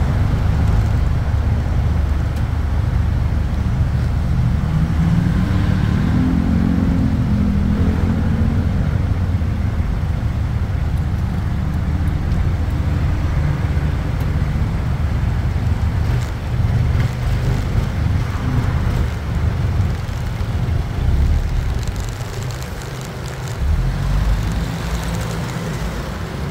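Motorcycle riding through traffic: a steady low road rumble, with an engine's pitch rising and then falling about six to eight seconds in.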